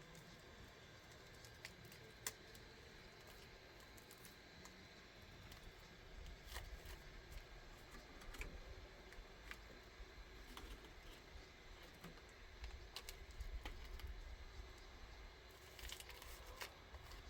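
Near silence: faint ambience with scattered soft clicks, and a low rumble that sets in about six seconds in.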